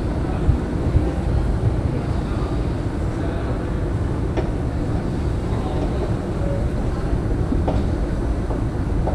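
Steady low rumble of city street noise, traffic and hum, with a few faint clicks.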